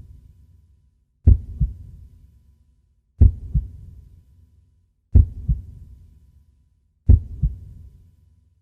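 Heartbeat sound effect: slow, steady lub-dub beats, four in all, about two seconds apart. Each beat is a heavy low thump followed closely by a softer second thump, trailing off in a short low fade.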